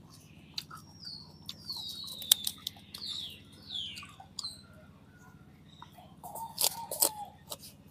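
Crisp lettuce leaves crackling as they are picked and torn, with small wet mouth clicks from chewing; a louder crunching flurry about six and a half seconds in as a bite of lettuce is chewed. A few high, descending chirps sound in the first half.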